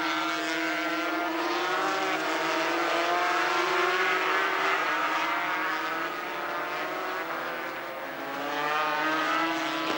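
Two 500cc two-stroke V4 Grand Prix motorcycles, a Honda NSR500 and a Suzuki RGV500, running hard at high revs close together. Their engine note climbs slowly, drops about halfway through, and shifts again near the end.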